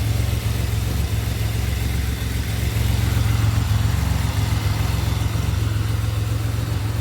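2007 Pontiac Grand Prix GT's supercharged 3.8-litre V6 idling steadily, running again after a crank-no-start fault.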